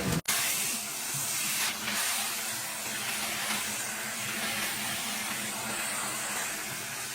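Vacuum cleaner running steadily with an airy hiss, after a brief drop-out just after the start.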